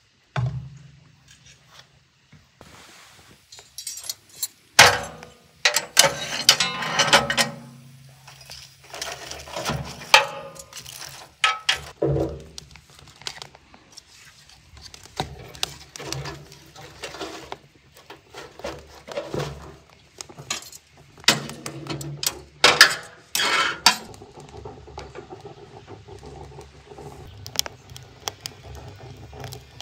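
A steel wood-burning stove and frying pan being handled, with metal clanks and knocks from the pan and the stove's doors, and wood and kindling rattling as the firebox is loaded. Near the end the newly lit fire crackles steadily.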